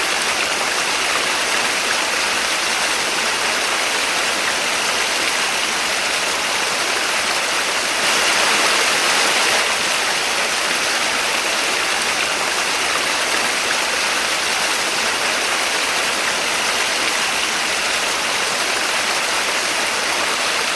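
Small waterfall: water falling and splashing in a steady rush, swelling briefly louder about eight seconds in.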